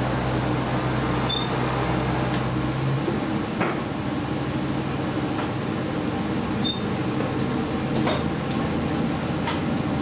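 Diesel railcar heard from inside the driving cab as the train pulls away from a station: a steady engine and running rumble whose low engine note drops away about three seconds in, with a few sharp clacks of the wheels over rail joints and points.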